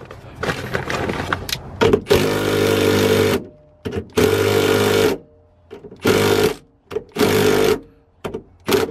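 Cordless impact wrench hammering in about five bursts of one to one and a half seconds, with short pauses between, loosening the 14 mm nut on a coilover's top hat.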